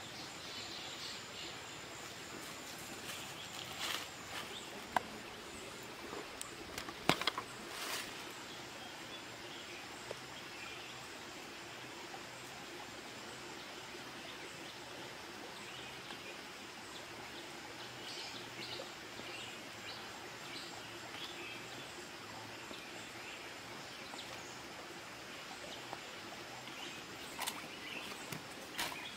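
Steady rush of a rocky forest stream with faint bird calls, and a handful of sharp knocks and taps between about four and eight seconds in.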